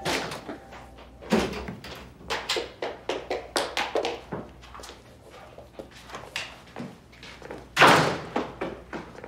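Irregular knocks and taps, several a second at times, with one louder thump about eight seconds in.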